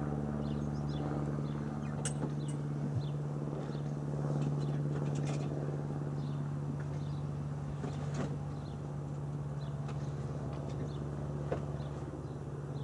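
Outdoor ambience: a steady low hum with scattered faint bird chirps and a few brief sharp clicks.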